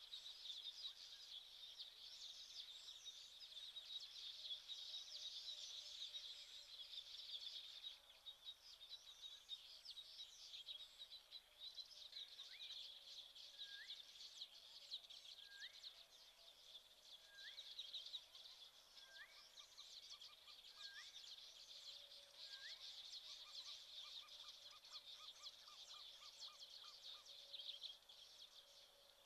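Faint bush ambience: a dense, continuous chorus of high-pitched chirping, with a bird's short whistled note repeated six times at about two-second intervals in the middle, and a soft trill later on.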